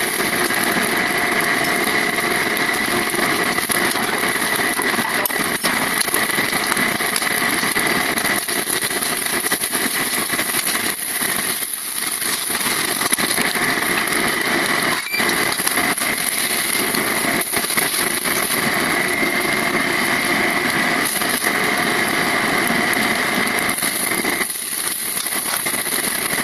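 Hot oil sizzling and crackling steadily as spoonfuls of a leftover-ingredient mixture deep-fry in the pan.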